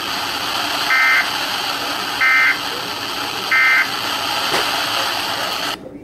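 Emergency Alert System end-of-message code played through a Sangean HD radio's speaker: three short, identical bursts of warbling two-tone data, about a second and a half apart, over steady broadcast hiss. They mark the end of the relayed severe thunderstorm warning. The hiss cuts off suddenly near the end.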